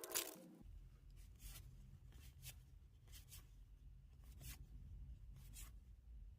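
Trading cards sliding over one another as they are handled, giving soft, irregular swishes about once a second. There is a louder rustle at the very start and a low hum underneath.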